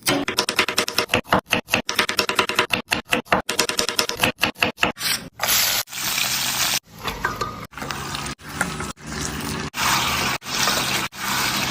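Cooking sounds: a utensil scraping in a pan, broken up by many abrupt cuts into short pieces.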